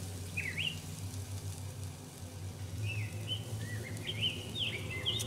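A small bird chirping outdoors: one short call about half a second in, then a string of quick chirps from about three seconds in. A steady low hum sits underneath.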